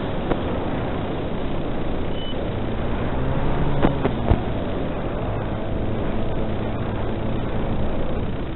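Electric motor and propeller of an FPV delta wing running in low flight, heard from on board with wind noise, its pitch drifting up and down with throttle. A couple of sharp clicks come about four seconds in.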